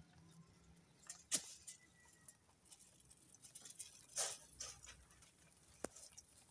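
Rabbits feeding on grass and clover, with irregular soft rustling and crunching of the stems as they chew and tug at them. Two sharp clicks come about a second in and near the end, and there is a louder rustle in the middle.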